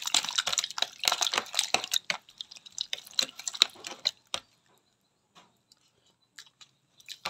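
Metal spoon stirring raw fish chunks in vinegar in a plastic tub to dissolve the salt and seasoning. It makes a quick run of wet squishes and spoon clicks against the container, then stops about four seconds in, leaving a few faint clicks.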